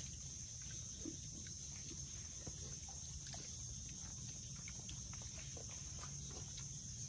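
Steady high-pitched insect drone, like crickets, over a low rumble, with a few faint scattered clicks.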